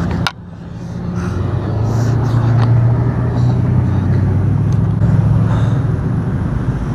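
A motor vehicle's engine running nearby as a steady low hum that builds up about a second in and then holds. It follows a sharp click just at the start.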